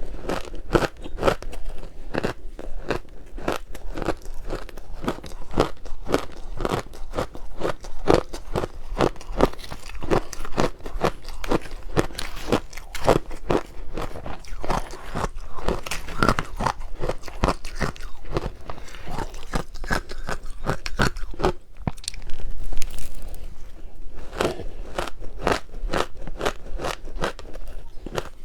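Close-miked crunching of powdery ice dusted with matcha powder being bitten and chewed: a dense run of crisp crackling crunches, several a second, with a brief pause a little past two-thirds of the way through.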